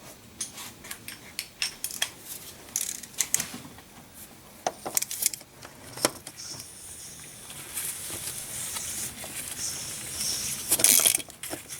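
Irregular clicks and clinks of the oil filter housing cap being threaded on by hand and snugged down against its O-ring. Near the end comes a denser scraping, rasping stretch that is the loudest part.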